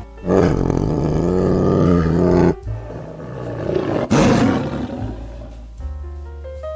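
Big cat roaring: one long roar of about two seconds, then a shorter, rougher roar about four seconds in. Soft background music notes come in near the end.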